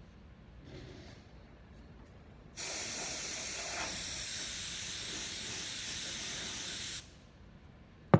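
A spray can hissing in one steady, continuous blast of about four and a half seconds, starting and stopping abruptly.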